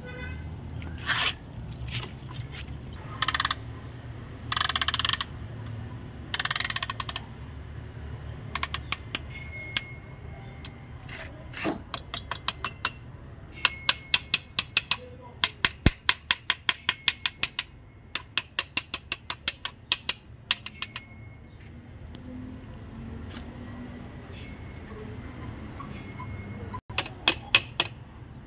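Metal-on-metal work installing a piston with its rings into a cylinder bore of a Range Rover 5.0 V8 block. A few seconds in there are three short rasping noises. These are followed by long runs of sharp clicks and taps at about three a second, which come again briefly near the end.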